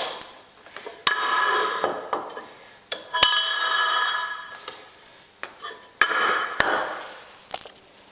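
Sharp metal knocks at a milling-machine vise holding a metal plate, about four of them, each followed by a bright metallic ringing that dies away over about a second, as the vise is cranked tight on the plate.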